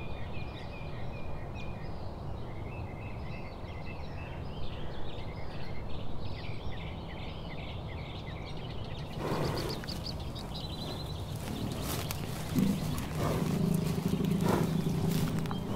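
Small birds chirping over and over above a low rumble of wind. From about nine seconds in there are a few knocks, and near the end a low, steady drawn-out tone comes in.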